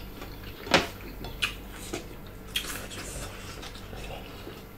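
Close-miked eating at a table: chewing and mouth sounds from people eating by hand, with one sharp click or knock about three-quarters of a second in and a few fainter clicks after.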